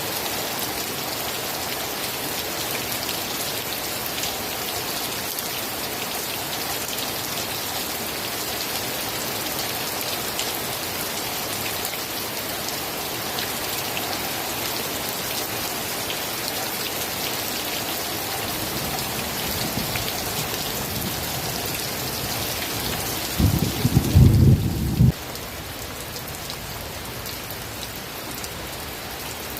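Steady heavy rain hissing on a surface. Late on, a short loud low rumble of thunder breaks in for about a second and a half, after which the rain goes on quieter.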